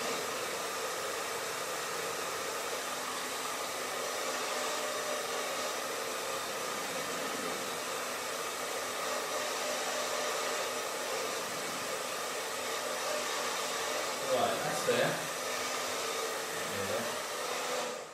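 Handheld hair dryer running steadily, a rush of air with a steady hum of tones under it. It cuts off right at the end.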